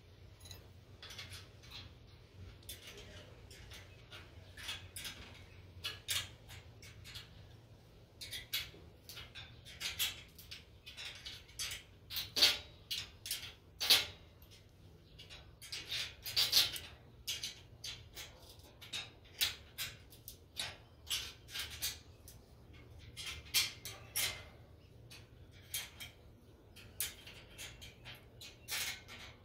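Hand tools and steel hardware working on a rail-switch joint: a wrench and loose nuts and bolts clinking and scraping against the steel rail in irregular short clicks, the sharpest a little before and after the middle.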